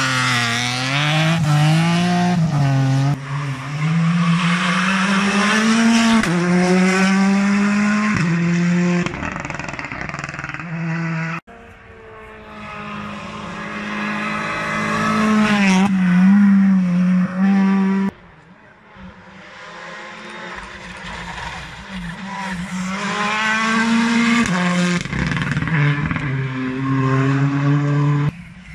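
A BMW E30 rally car's engine revving hard, its pitch climbing and then dropping at each gear change. About eleven seconds in the sound cuts abruptly to another rally car accelerating up through the gears. A second cut at about eighteen seconds brings a third car, approaching and growing louder as it revs.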